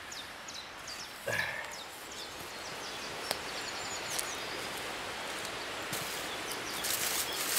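Outdoor ambience: a steady hiss with a quick run of short high chirps at the very start, a few isolated clicks, and a cluster of crackles and rustles near the end.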